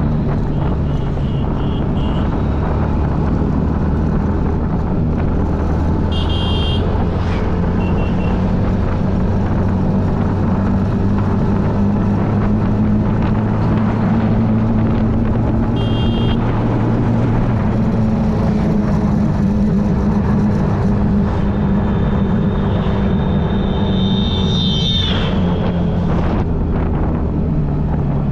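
Road traffic: a steady engine hum with a few short horn toots, and one longer horn near the end that drops in pitch.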